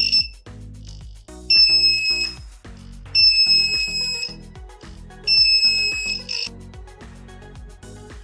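Epson L1800 printer's buzzer beeping: a short blip, then three long, high beeps about two seconds apart. This is the printer's error beep. Background music with a steady beat runs underneath.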